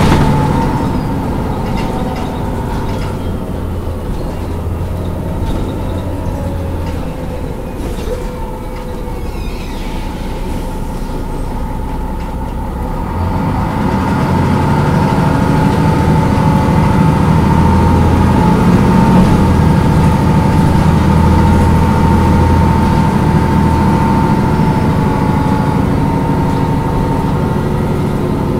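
A 2000 MAN NG313 articulated city bus heard on board while driving: its diesel engine and ZF EcoMat automatic gearbox run fairly quietly at first. About halfway through, the engine note deepens and grows louder as the bus pulls harder. A steady high whine runs underneath the whole time.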